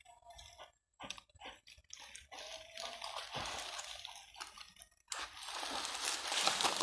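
Shallow water sloshing and splashing in fits and starts, with scattered clicks and knocks. About five seconds in, a rustling hiss starts and grows louder.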